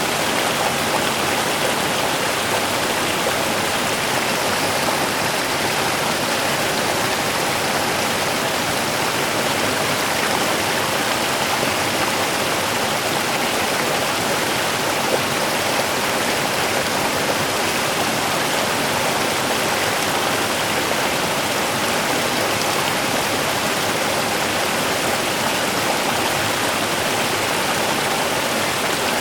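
Small river running, a steady, unbroken rush of water.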